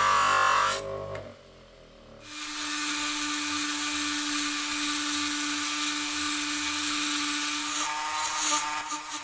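After a louder sound breaks off about a second in and a brief lull, a Dremel-type handheld rotary tool runs at a steady high speed, its small bit grinding inside the perforations of a steel grater drum. Near the end its pitch dips slightly and the sound turns rougher.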